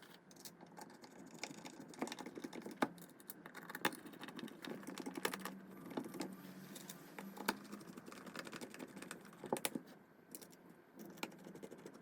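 Irregular small clicks, taps and rustles of hands handling and fitting the plastic parts of a handheld airless paint sprayer during reassembly.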